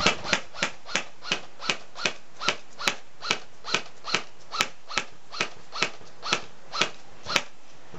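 Airsoft rifle firing single shots in a steady rhythm, about two or three sharp clicks a second, stopping shortly before the end.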